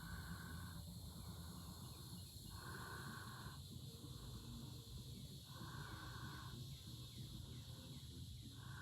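An animal call repeated about every three seconds, each a short, even call lasting under a second, with faint quick falling chirps between them over a steady high hiss.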